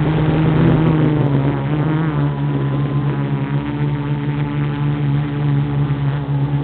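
Quadcopter's electric motors and propellers buzzing steadily, heard close from the camera on board, the pitch dipping slightly about two seconds in as the craft adjusts its flight.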